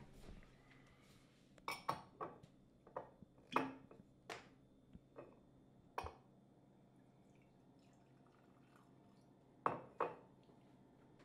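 Wine glass and bottle clinking and knocking as they are handled and set down on a kitchen countertop: a quick run of knocks, a single one, then two close together near the end.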